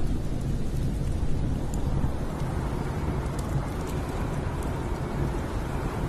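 Steady storm ambience: a deep rumble with a hiss over it, and faint scattered crackles from a log fire.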